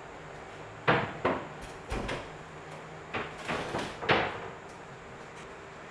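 Large moulded plastic wall panels of a prefabricated bathroom pod knocking and scraping as they are shifted by hand and stood against one another: about seven separate knocks and scuffs, the loudest about a second in and about four seconds in.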